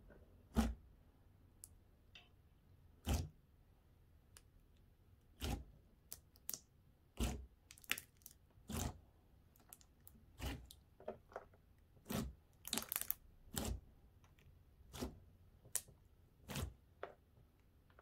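Gooey slime being poked and worked by hand, giving a string of sharp, irregular clicks and squelchy pops, roughly one a second.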